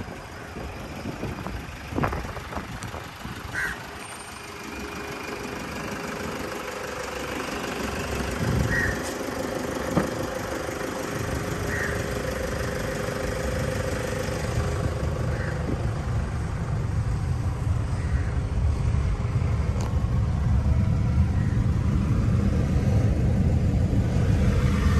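Toyota Dyna truck engine running, its low rumble growing steadily louder over the second half. There are a few sharp knocks in the first few seconds.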